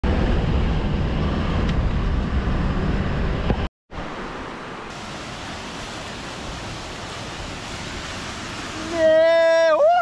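Rushing water of a waterfall, loud and full for the first few seconds, then after a sudden cut quieter and steady. About nine seconds in, a loud held tone comes in over it, jumps up in pitch and bends up and down.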